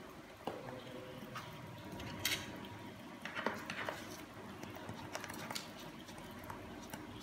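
Scattered light clicks and taps of kitchen utensils and containers being handled, the loudest about two seconds in and a quick cluster around three and a half seconds, over a faint steady hiss.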